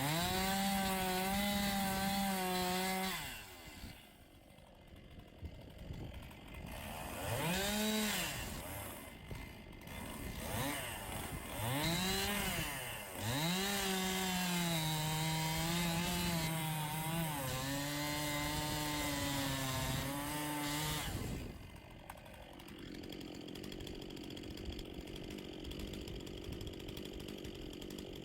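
Chainsaw revving at full throttle, dropping to idle, blipped up a few times, then cutting into a dead ash trunk for about eight seconds with its pitch sagging under load in the back cut, before falling back to a steady idle.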